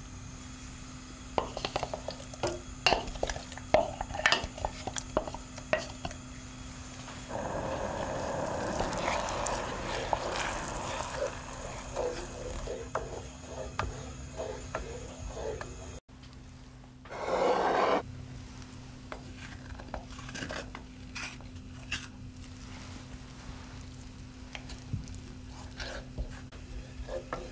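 Wooden spoon stirring mashed peaches in syrup in a saucepan, with many light taps and scrapes against the pan. There is a stretch of steady hissing in the middle, and a short louder rush of noise a little past halfway.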